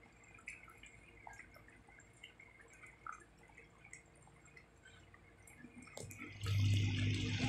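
Thick chicken afritada stew simmering in a pot, with faint scattered bubbling pops. About six seconds in, a much louder steady rushing noise with a low hum starts and carries on.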